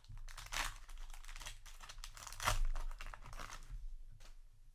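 Foil trading-card booster pack wrapper being torn open and crinkled, in irregular crackles with the loudest tear about two and a half seconds in.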